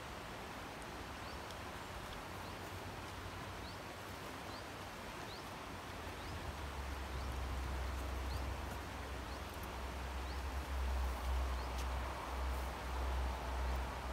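Wind buffeting the microphone, a low rumble that grows about six seconds in and then comes in gusts, over a steady outdoor hiss. Faint, short high bird chirps sound now and then.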